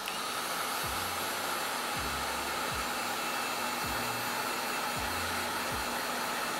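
Hot air gun blowing a steady rush of air, heating a glued-down part inside a smartphone to loosen it. It switches on at the start and cuts off near the end.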